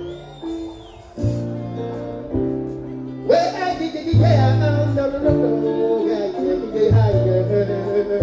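Live concert music through a PA: backing music with long held chords comes in about a second in, and a man starts singing over it at about three seconds.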